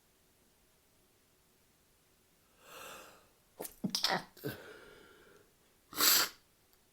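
A person sneezing in a sneezing fit: a breathy intake, then a sharp sneeze about four seconds in, and a second loud sneeze about six seconds in.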